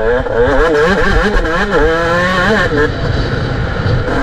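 A 125 cc motocross bike's engine, ridden over a dirt track, revving up and down in quick repeated surges with each throttle change and shift. Its pitch drops about three seconds in, then climbs again near the end. A low rumble of wind buffets the bike-mounted microphone throughout.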